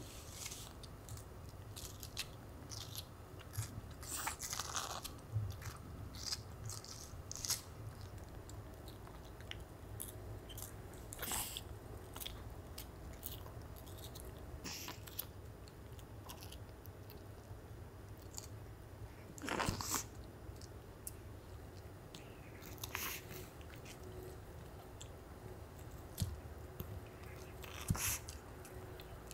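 Pomeranian dog biting and chewing watermelon: irregular wet crunches and smacks of small bites, the strongest about 11, 20 and 28 seconds in.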